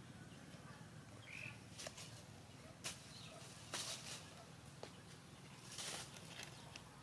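Faint rustling and crackling of dry leaves on the ground in several short bursts, the longest near the end, with one brief high chirp about one and a half seconds in.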